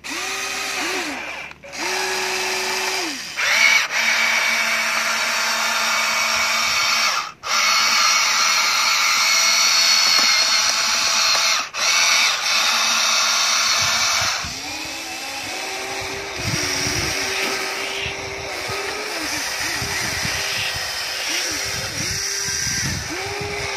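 Remote-control toy excavator's small electric motors and plastic gearboxes whining as it works its arm and drives on its tracks. Two short runs come first, then a steady run of about ten seconds with two brief breaks, then many short stop-start runs, each rising and falling in pitch.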